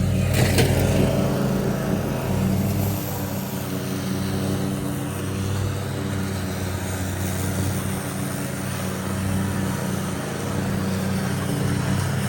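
Lawn mower engine running steadily, with a brief sharp knock about half a second in.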